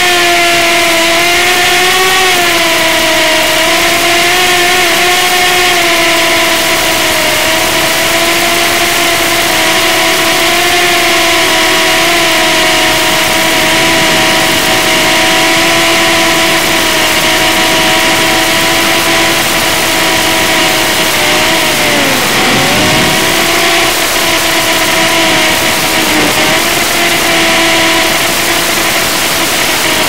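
Brushed motors and propellers of a small FPV micro quadcopter whining steadily, the pitch wavering slightly with throttle. About 22 seconds in, the pitch drops sharply and climbs back.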